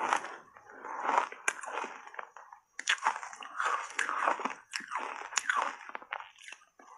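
Close-miked crunching and chewing of a mouthful of shaved ice coated in matcha powder, in irregular bursts of crackly crunches with a short pause a little under three seconds in.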